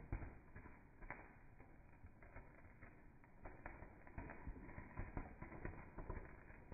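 Faint, irregular crackling and popping from a firework showering sparks, getting busier a few seconds in.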